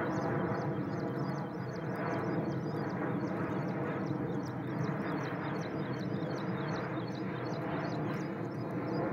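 Jet airliner passing overhead, its engines giving a steady rumble with a hum of steady tones in it. Rapid high-pitched chirping runs along with it.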